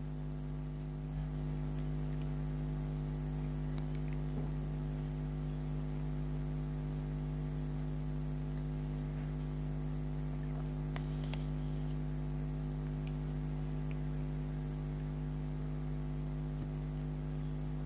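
Steady electrical hum, like mains hum, with faint scattered clicks from chewing soft syrupy Indian sweets.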